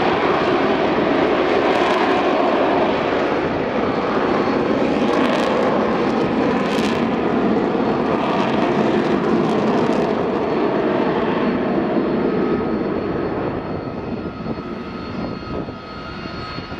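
Harrier jump jet's Rolls-Royce Pegasus turbofan running at high power: a loud, steady jet roar that fades from about thirteen seconds in as the aircraft moves away.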